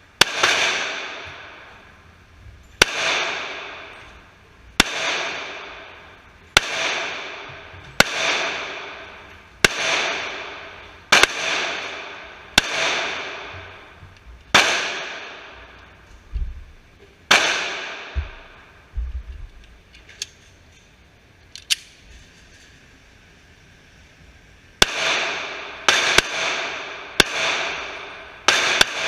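Glock 27 .40 S&W subcompact pistol fired in deliberate single shots about every one and a half to two seconds. Each crack is followed by a long echo. A pause of several seconds comes after about 17 seconds, with a couple of faint clicks, then a quicker string of shots near the end.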